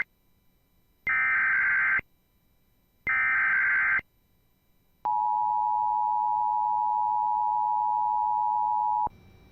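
Emergency Alert System opening for a tornado warning. First come two one-second bursts of SAME header data tones, a second apart. Then the two-tone attention signal, a steady pair of tones held for about four seconds, cuts off suddenly.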